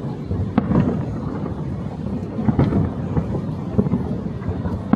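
Fireworks show exploding: several sharp bangs, spaced unevenly, over a steady low rumble of booms.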